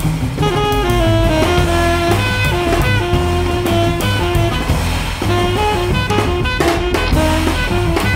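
Live trio of tenor saxophone, double bass and drum kit playing a microtonal piece: the saxophone plays a line of held and short notes over a walking bass, with cymbals and drums struck throughout.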